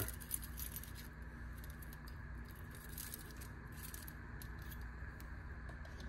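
Faint, scattered clicks and light rattles of a metal key ring and screwdriver bits in their holders being handled, over a steady low hum.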